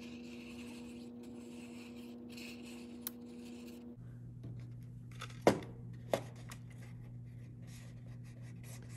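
Cardstock being handled and pressed together: soft paper rustles, with two sharp taps about five and a half and six seconds in, over a low steady hum.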